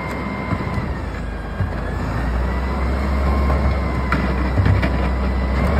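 Idling diesel engine of an Autocar Xpeditor front-loader garbage truck, its low hum getting stronger about two seconds in, with a faint whine over it. A few short knocks of trash cans and bags being tipped into the truck's front-mounted container.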